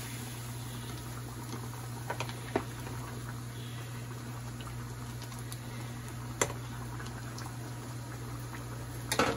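Covered aluminium pot bubbling on the stove: a steady simmering hiss over a constant low hum, with a few sharp clicks about two, six and nine seconds in.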